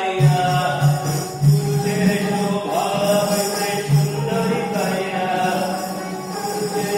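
Bengali folk music: sustained melody and drone notes with jingling percussion, and a few low strokes in the first two seconds and again about four seconds in.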